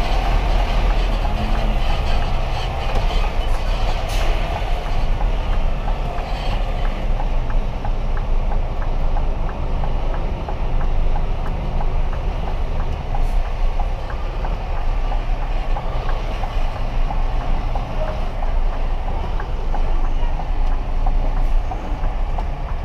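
Steady engine and road rumble heard from inside a vehicle's cab, deepest in the bass. Faint regular ticking runs at about two a second.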